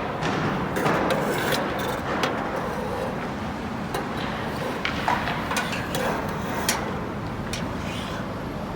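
Steady urban background noise, like traffic around a car park, with a few scattered short clicks and knocks.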